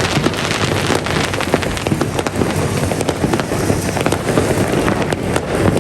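Many fireworks going off at once: a dense, unbroken wash of crackling pops with no pause.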